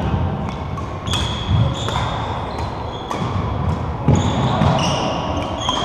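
Badminton rally on a wooden court: sharp racket hits on the shuttlecock and thuds of footfalls, with short high shoe squeaks on the floorboards.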